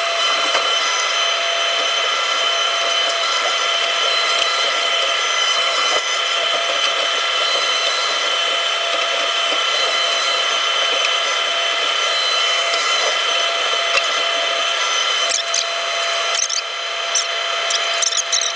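Takeuchi TB290 excavator running at steady revs, a steady whine from its engine and hydraulics. A few short scrapes and knocks come near the end.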